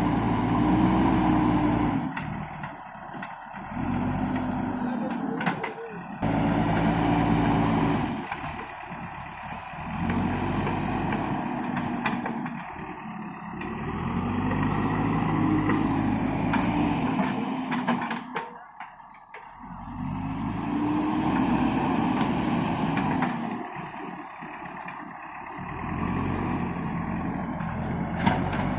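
JCB backhoe loader's diesel engine revving up under hydraulic load and easing back again, over and over, about every four to six seconds as the machine works through its digging cycle.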